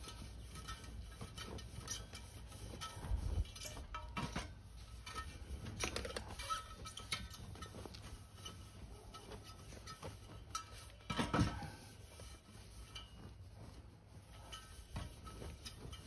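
Cloth rag rubbing around the cast alloy rim of a Honda SH150i scooter front wheel, wiping the bead seat clean, with scattered light clicks and knocks of the wheel on its tire-changer stand and one louder bump about eleven seconds in.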